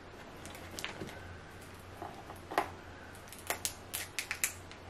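Boiled crawfish shell being cracked and peeled apart by hand: scattered small cracks and clicks, with a quick run of about five near the end.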